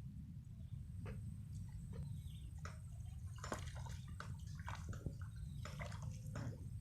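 Irregular small water splashes and drips, over a steady low rumble.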